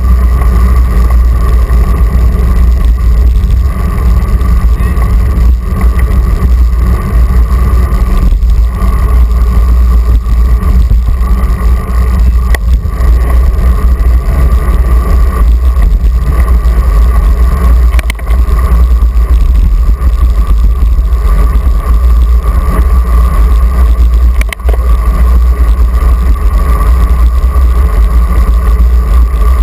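Wind rumble on a handlebar-mounted GoPro's microphone while cycling on a paved path, mixed with tyre-on-asphalt noise, with a steady whine underneath.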